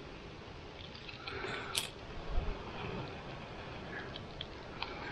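Soft breathy blowing on smouldering birch bark held against a hot car cigarette lighter, coaxing it to flame, with a few faint crackles and small clicks; one sharp click a little under two seconds in.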